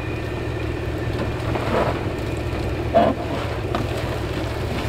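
100 series Toyota Land Cruiser engine running at low revs as the 4WD crawls slowly down a steep rutted track, a steady low drone. A short, sharp sound stands out about three seconds in.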